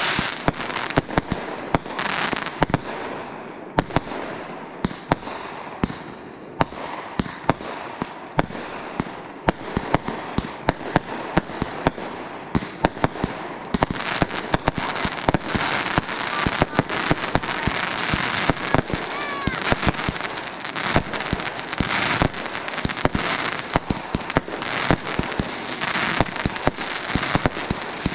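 Consumer fireworks going off: a dense, irregular run of sharp bangs and crackling reports that goes on without a break.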